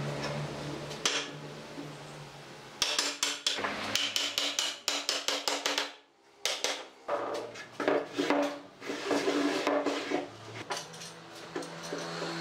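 Wooden chair-frame parts knocking and clicking against each other as the joints are fitted together by hand: a quick, irregular run of sharp taps and clatters, with a short pause around the middle.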